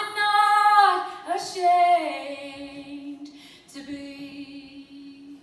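A woman singing live with little or no accompaniment: a wordless phrase that slides down in pitch over the first two seconds, then settles into one long held note.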